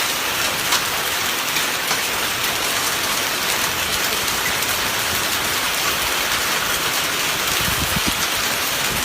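Rain falling steadily in a summer storm, an even hiss with no letup.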